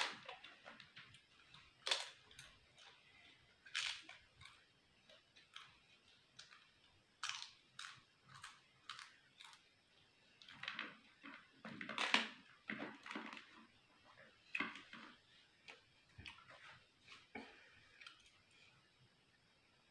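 Fried papad crunching as it is broken and bitten, with chewing in between, close to the microphone: irregular crisp cracks every second or two, the loudest about midway.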